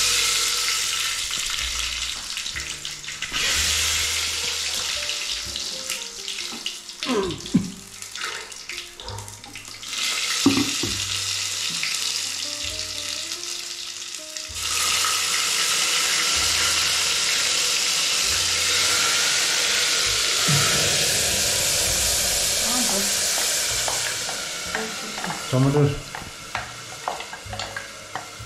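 Food sizzling in hot oil in an aluminium pressure cooker, stirred with a spoon. The sizzle dips and returns, runs steady and loudest from about halfway, then fades near the end.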